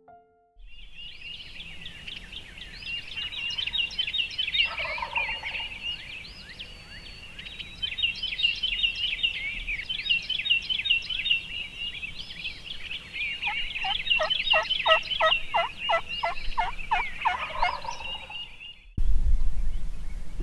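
Wild turkey gobbling, once briefly and then in a longer rolling series near the end, over a dense chorus of high chirping calls.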